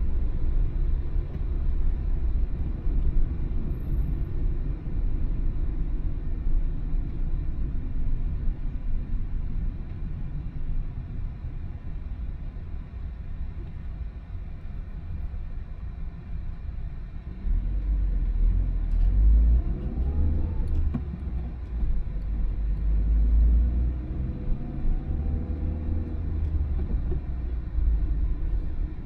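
Car being driven: a steady low engine and road rumble. About two-thirds of the way in it gets louder and the engine pitch rises as the car accelerates, and it rises again a few seconds later.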